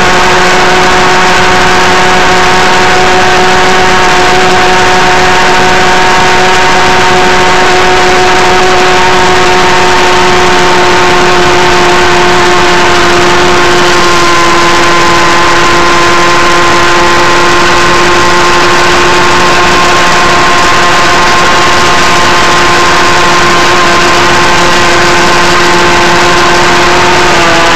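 Go-Ped GSR25 scooter's small two-stroke engine, fitted with a new exhaust pipe, running hard at a steady high pitch under held throttle. The pitch dips slightly about halfway and falls off at the very end as the revs drop.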